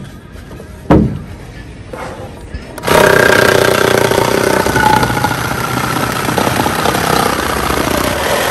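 A single knock about a second in. Then a cordless reciprocating saw starts about three seconds in and runs steadily, its blade cutting through a building block, stopping at the very end.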